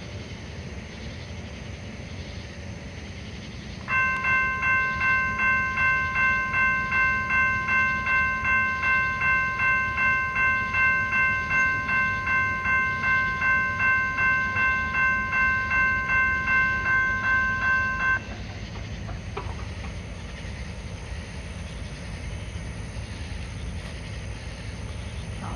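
Railroad grade-crossing bell ringing at about two strokes a second, starting about four seconds in and stopping suddenly about fourteen seconds later, as the crossing warning signals flash for an approaching freight train. A steady low rumble runs underneath.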